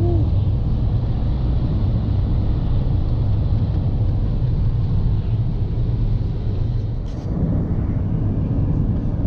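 Steady low rumble of tyre and engine noise inside a car's cabin at highway speed.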